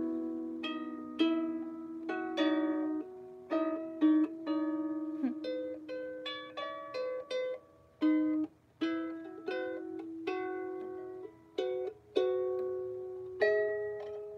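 An out-of-tune harp plucked in a slow, wandering improvisation. Single notes and pairs come about two to three a second, each ringing and fading, with a brief pause about eight seconds in.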